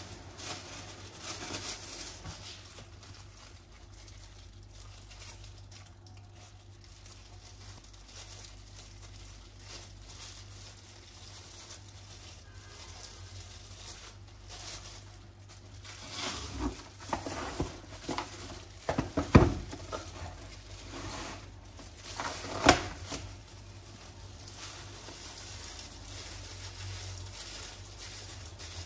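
Thin plastic disposable gloves crinkling as they are worked over the hands, with a run of knocks and clicks about two-thirds of the way through, two of them sharp and loud.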